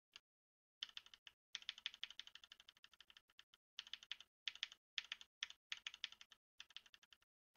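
Faint computer keyboard clicking: quick runs of key taps with short pauses between them.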